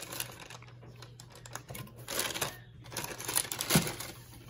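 Clear plastic packaging bags rustling and crinkling as they are handled and lifted out of a cardboard box, in irregular bursts with a sharp tick near the end.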